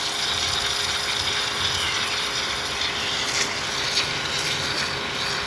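High-pressure water jet hissing steadily as it blasts into bare soil, with the pressure pump running under it with a mechanical rattle.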